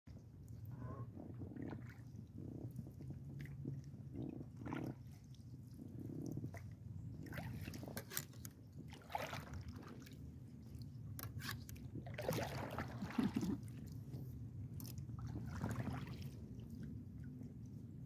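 Kayak paddle blades dipping and splashing in the water, several strokes mostly in the second half, over a low steady rumble of wind and phone handling on the microphone.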